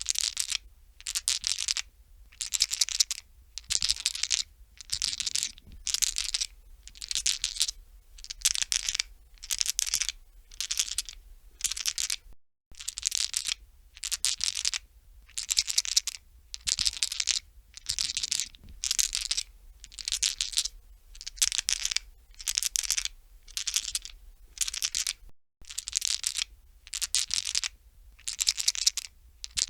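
Dice shaken in a hand, rattling and clicking against each other in short bursts about once a second.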